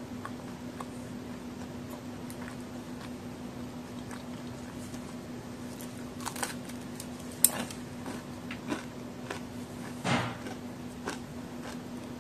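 Biting into and chewing a large homemade chocolate-and-raisin cookie: a bite about halfway in with one sharp snap, then a few crisp crunches while chewing.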